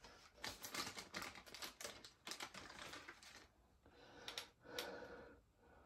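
Faint rapid clicking and light rattling of small plastic toy-airport pieces being handled and sorted. It goes on for about three seconds, followed by a few separate clicks and a soft rustle.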